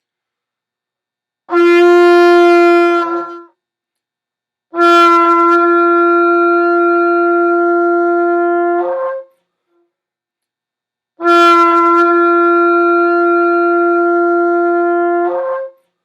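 Shofar, a hollowed animal horn, blown three times: a short blast of about two seconds, then two long steady blasts of about four seconds each, each long one breaking upward to a higher note just before it stops.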